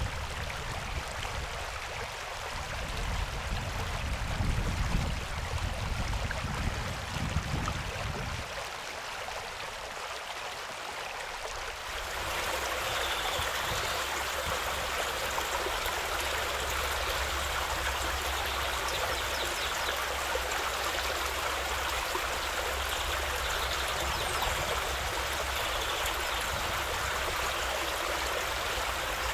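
Steady rush of flowing stream water, with a low rumbling under it for the first eight seconds or so. About twelve seconds in it changes abruptly to a brighter, more even rush.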